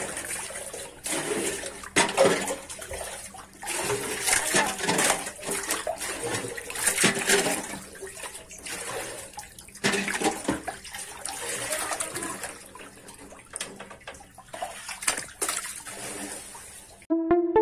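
Water splashing and sloshing irregularly as long, eel-like fish thrash in shallow water, in uneven bursts. Music cuts in right at the end.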